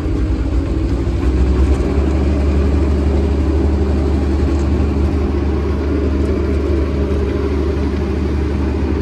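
Massey Ferguson 399's Perkins 6.354 six-cylinder diesel engine running as the tractor pulls away, heard from inside the cab. The engine note lifts a little over the first couple of seconds, then runs steadily.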